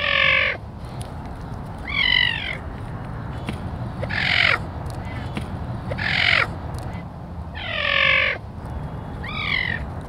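Caracal calling: six short calls about two seconds apart, over a steady low rumble.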